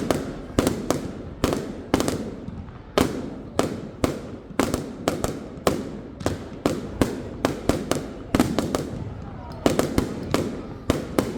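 Fireworks going off: an irregular string of sharp bangs, about two or three a second, each trailing off with a short echo.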